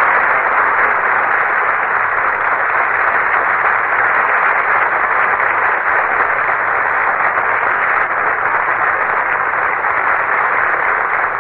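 Studio audience applauding steadily after the show's closing number, heard as a dense, even hiss through a narrow-band 1951 radio broadcast recording.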